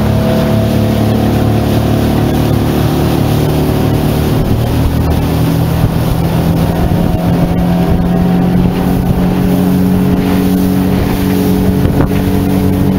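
50 hp outboard motor running steadily at high revs, driving a small aluminium boat at speed, with water rushing past the hull.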